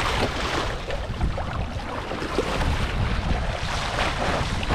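Sea water rushing and splashing along a sailing canoe's hull and outrigger float as it sails through the waves, with wind buffeting the microphone.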